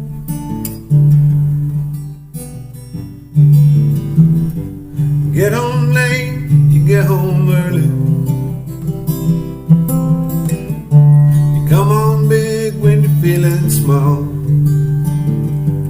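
Acoustic guitar playing the song's intro, picked and strummed chords in a steady rhythm. Twice, around six and twelve seconds in, a sliding melody line bends up over the chords.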